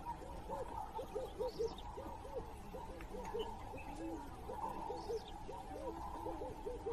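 A bird giving short hooting notes again and again, in twos and threes, about two or three notes a second, over a steady background hum.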